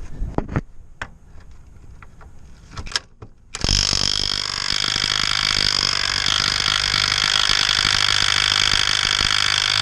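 Cordless impact wrench hammering steadily on a seized 17 mm shock bolt for about six seconds, starting about three and a half seconds in and cutting off abruptly, without breaking the bolt loose. It is preceded by a few short knocks as the socket is fitted.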